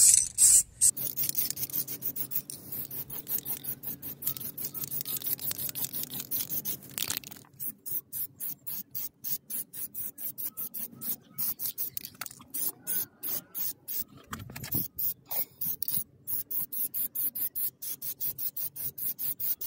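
Aerosol can of red brake-caliper spray paint in use, giving a rapid, regular pulsing hiss, several pulses a second, with short breaks.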